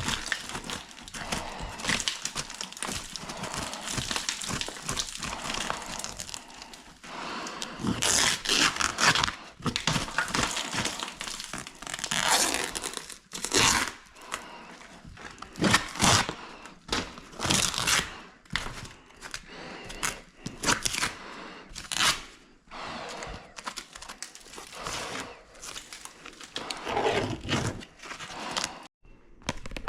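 Irregular crumpling, tearing and scraping noises from materials being handled and pulled apart, with sharper louder strokes now and then.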